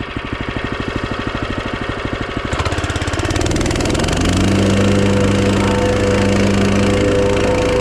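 Small gas engine on a construction machine, idling with a rapid even pulse, then throttled up about two and a half seconds in and settling into a steady high-speed run.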